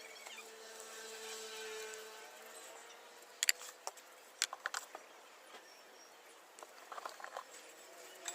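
Sharp metallic clicks and taps from hand tools on motorbike parts, coming in small clusters, over a faint steady hum.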